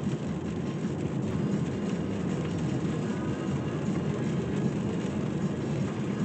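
Steady road and engine noise inside the cabin of a Volvo S60 being driven at an even speed.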